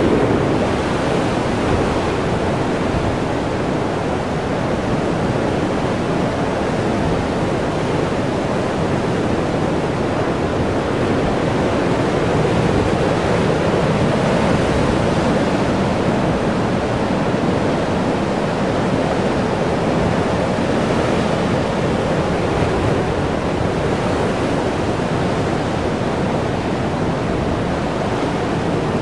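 Heavy Pacific surf surging and churning over a rocky shoreline and through a narrow sea chasm: a steady, loud rush of water noise with no clear breaks.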